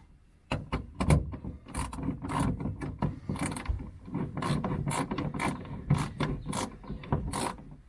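Socket wrench ratchet on a long extension clicking through repeated back-and-forth strokes as it turns a seatbelt anchor bolt through the carpet into the floor. The clicking starts about half a second in and comes in quick clusters until near the end.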